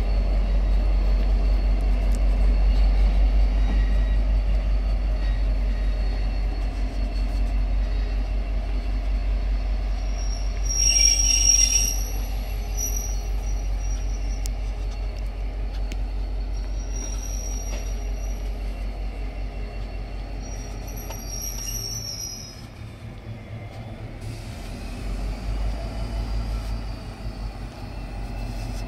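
A diesel train running past with a steady low rumble, its wheels squealing in short high-pitched bursts, loudest about eleven seconds in, then twice more shortly after.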